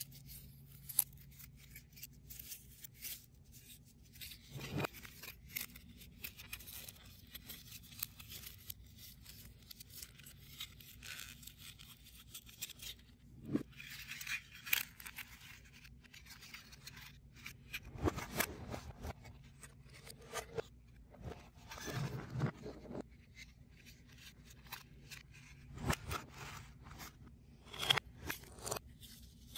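Small foam-board 3D puzzle pieces being handled and fitted together by hand: scattered small clicks, scrapes and rustles at irregular intervals as tabs are pressed into slots.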